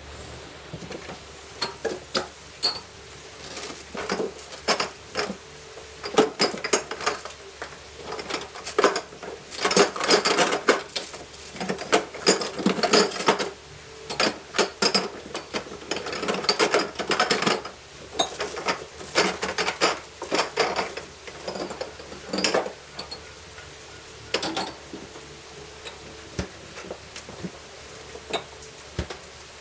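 Glass beer bottles clinking and knocking against each other and the wire shelves as they are moved around inside an upright freezer, in irregular runs of clinks that thin out over the last few seconds.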